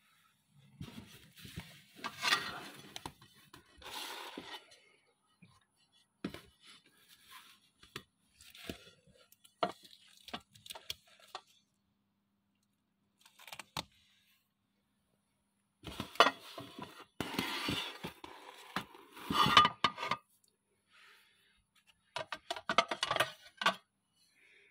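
Kuznetsov porcelain plates being handled: clinks, knocks and short scrapes as the plates are lifted, turned over and set against one another, in several bursts with quiet gaps between.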